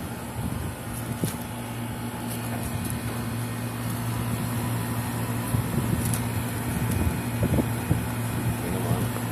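Air-conditioner outdoor condensing unit running under test on its newly fitted magnetic contactor: a steady compressor hum with condenser-fan noise, and a few light knocks.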